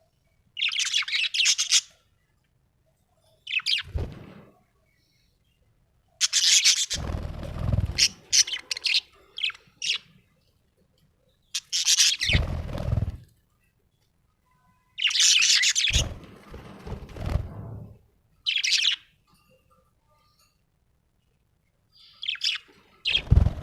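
Budgerigar chirping in short bursts of high, rapid chatter, about seven bursts with pauses of one to two seconds between them.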